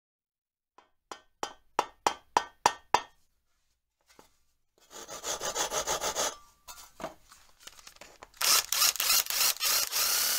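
Hand tools at work: a run of about eight sharp, ringing knocks, then rhythmic rasping strokes, ending in a loud stretch of fast rasping.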